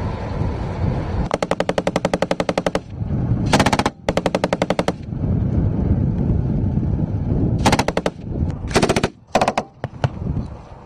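PK-type machine gun firing bursts at about ten shots a second: a long burst of about a second and a half, two shorter bursts right after, then after a pause four short bursts. An armoured vehicle's engine runs underneath at the start and during the pause.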